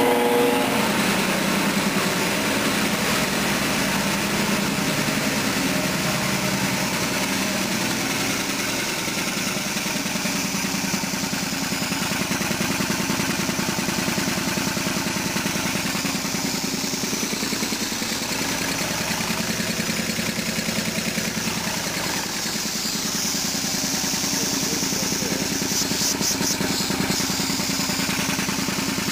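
Westinghouse Air Brake compressor with a LeRoi Dresser Series 800 three-cylinder, two-stage pump, driven by a 10 hp single-phase electric motor, running steadily with a fast, even pulsing beat. It has just started on a test run with no controls connected and is pumping up its tank.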